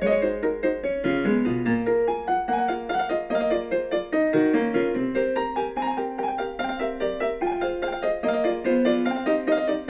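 Background piano music: a steady flow of notes with no voice.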